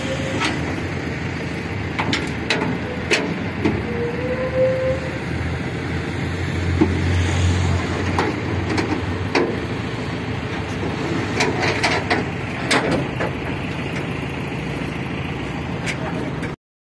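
Outdoor background noise at a classic car meet: a steady hiss-like din with scattered clicks and knocks, and a brief low rumble about seven seconds in. It cuts off suddenly near the end.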